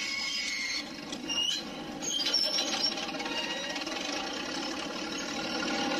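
Heavy machinery running steadily, with a high squeal that stops about a second in and short squealing tones soon after.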